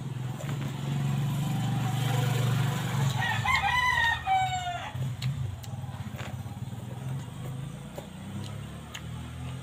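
A rooster crowing once about three seconds in, one drawn-out call that falls in pitch at the end, over a low steady hum.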